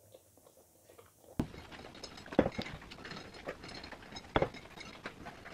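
Drinking from a plastic water bottle: a few sharp clicks and knocks with swallowing, starting about a second and a half in after a very quiet opening.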